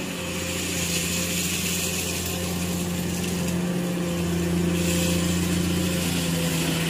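Komatsu PC210 hydraulic excavator's diesel engine running steadily while the machine digs, a constant engine hum with a hiss over it.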